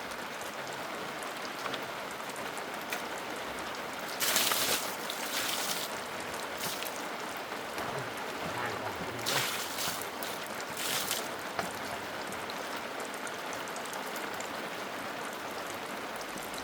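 Steady hiss of heavy rain, with four brief louder rushes of noise about four, five and a half, nine and a half and eleven seconds in.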